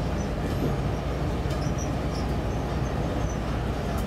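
TEMU2000 Puyuma tilting-train cars rolling past close by, hauled as unpowered stock: a steady low rumble of wheels on the rails.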